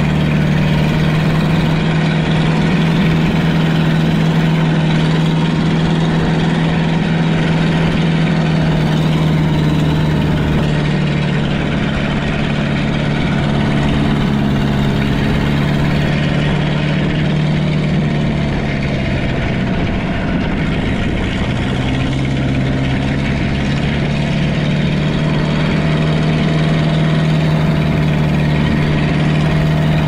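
Fishing boat's diesel engine running steadily with a low hum. About twenty seconds in it briefly drops in pitch, then picks back up.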